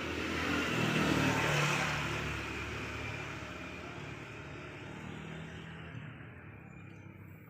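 A motor vehicle passing along the street, its engine and tyre noise swelling to a peak about a second or two in and then slowly fading away.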